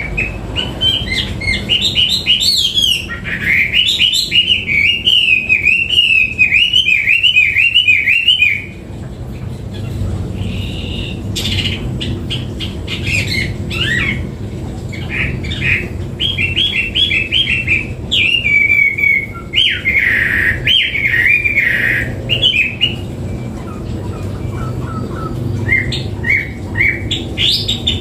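Chinese hwamei singing: a long run of loud, fast, varied warbled phrases for the first eight seconds or so, then shorter phrases with brief pauses between them.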